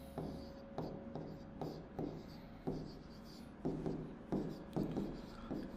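Stylus writing on an interactive display board: a series of short, irregular taps and scrapes as letters are written out.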